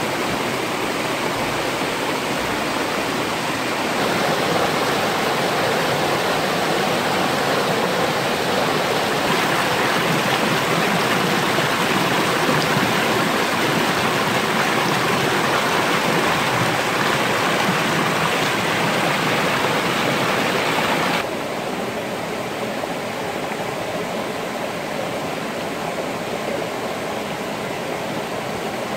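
Mountain river rushing and splashing over rocks and boulders, a steady hiss of flowing water. It gets louder about four seconds in, then drops and sounds duller about twenty-one seconds in.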